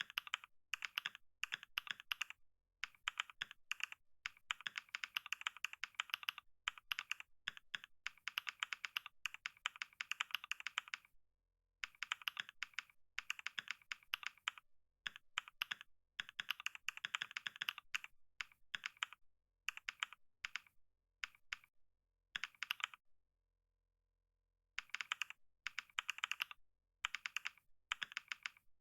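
Computer keyboard being typed on fast in a typing-speed test: quick runs of keystrokes broken by short pauses, with one longer break of about two seconds roughly three quarters of the way through.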